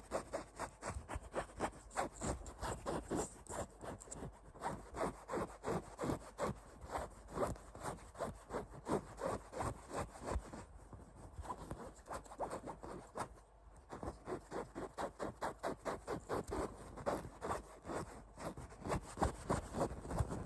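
Rapid rhythmic scratching on a poop emoji toy, about three rasping strokes a second, with a couple of brief pauses midway.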